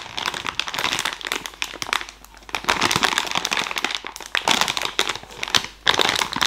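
Crinkling of a sealed plastic toy pouch as the foam unicorn squishy inside it is squeezed by hand, in repeated squeezes with brief pauses.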